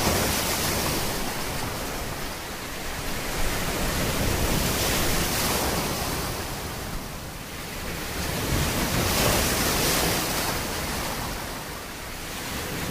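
Waves washing in, a steady rush of noise that swells and ebbs every few seconds.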